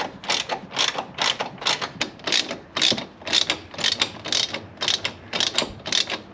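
Ratchet wrench with a 15 mm socket on an extension, worked back and forth to undo a shock absorber mounting bolt: an even run of short pawl rasps, about three a second.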